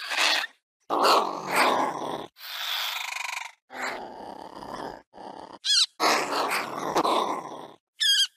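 Made-up creature sound effects for a Compsognathus: a string of short, raspy growls broken by brief silences. About two and a half seconds in there is a high, rattling hiss, and twice a high squeaky chirp.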